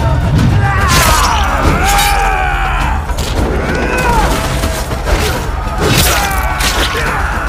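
Film battle sound mix: men shouting and crying out, with several sudden thuds and crashes of blows, over a steady low music score.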